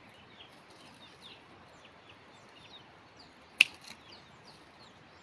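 Pruning shears snap shut once, sharply, about three and a half seconds in, cutting a rootstock sucker from below the graft of a young grafted tree, with a fainter click just after. Birds chirp throughout.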